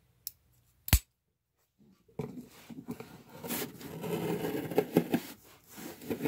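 A sharp click about a second in, then about four seconds of scraping and rubbing as a small tool is worked along the packing tape on top of a cardboard shipping box.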